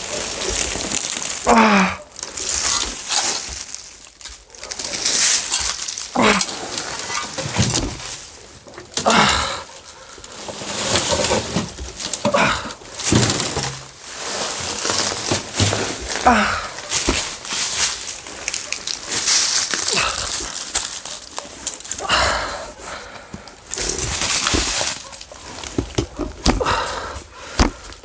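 A man groaning and breathing hard in pain after a fall, with rustling and scraping as he moves among debris and a fallen door.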